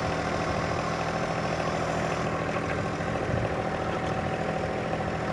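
Subcompact diesel tractor engine running steadily while towing a box blade through loose dirt.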